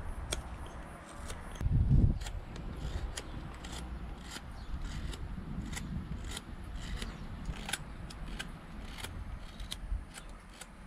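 Carving knife cutting birch wood, a quick irregular series of crisp slicing strokes as shavings come off a spoon blank. A loud low thump about two seconds in.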